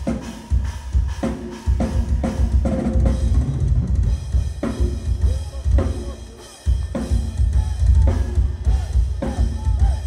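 Live drum kit solo: fast, nearly continuous bass drum with snare and cymbal strikes on top. The bass drum drops out briefly about six and a half seconds in, then comes back in loud.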